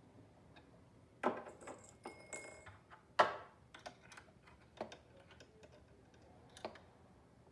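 Small metallic clicks and clinks from handling a screwdriver and the metal parts at the needle clamp of a Janome 2212 sewing machine: a short clatter, one sharp loud click about three seconds in, then a few lighter taps.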